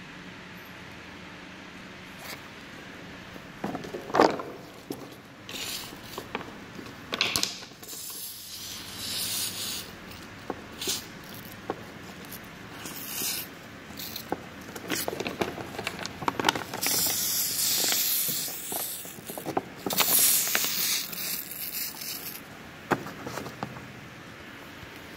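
Leak-detection foam sprayed onto a refrigerant coil in irregular hissing bursts, the longest lasting about two seconds, for a refrigerant leak test. Knocks and handling noise come between the bursts, the loudest about four seconds in.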